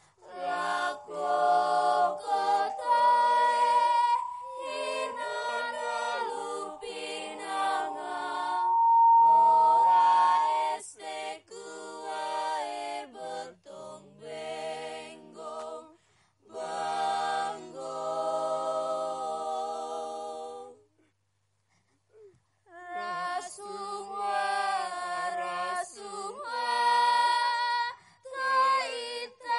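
Several voices singing unaccompanied in short phrases, one of them holding a long high note from a few seconds in until about ten seconds. The singing stops for a moment about three quarters of the way through, then starts again.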